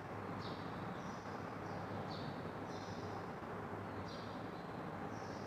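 Short high chirps, like a small bird calling, repeating about every half second with a brief pause midway, over a steady low room hum.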